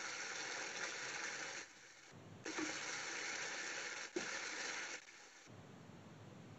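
Faint sizzle of a spice masala frying in oil in a non-stick pan while a wooden spatula stirs it, at the stage where the masala releases its oil and aroma. It cuts out abruptly about a second and a half in, comes back with a light click, then drops low again near the end.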